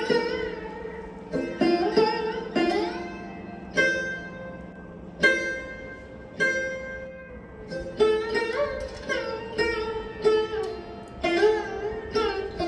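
Background instrumental music of plucked string notes, many sliding or bending in pitch, each struck note fading slowly.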